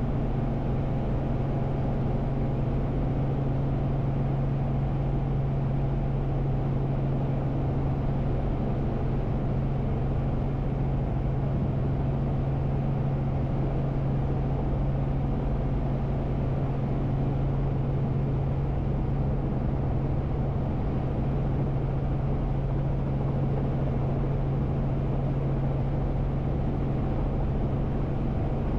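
Robinson R44 Raven II helicopter heard from inside the cabin while hovering: the six-cylinder piston engine, rotors and drivetrain making a steady drone with a strong low hum.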